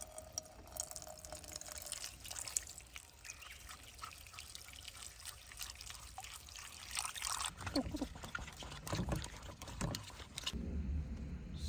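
Water trickling and pouring as a peeled bamboo shoot is rinsed, with small splashes and clicks of handling.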